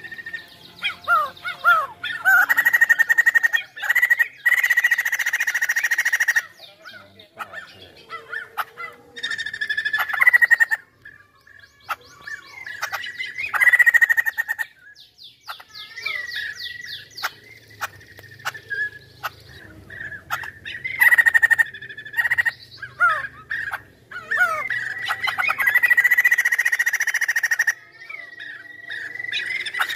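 White-crested laughingthrush singing in long bouts: held whistled notes at one steady pitch run together with fast rattling chatter and short sliding calls, with brief pauses between bouts.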